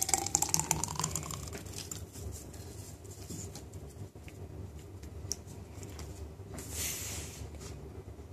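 Thick fruit smoothie pouring from a blender jug into a glass over ice cubes, splattering and glugging, with a tone that rises in pitch as the glass fills over the first second or so. Then softer scattered clicks and a brief hiss near the end.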